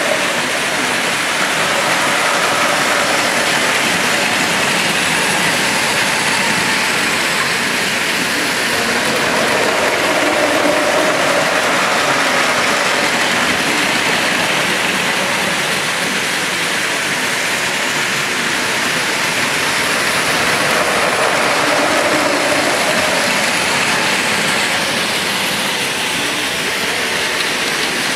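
Several battery-powered Plarail toy trains running at once on plastic track: a steady whir of small motors and a rattle of wheels over track joints, swelling and easing gently as they come and go.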